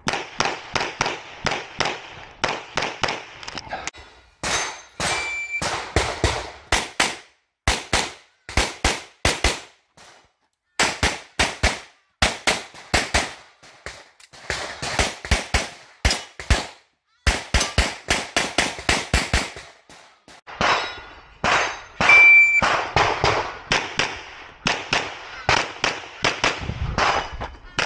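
Semi-automatic pistol fired in fast strings of shots with short pauses between strings, as a shooter engages targets through a practical shooting stage. A brief ringing tone sounds twice among the shots.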